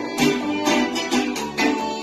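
Small live string band playing: acoustic guitars strummed in a steady rhythm, with violins holding the melody.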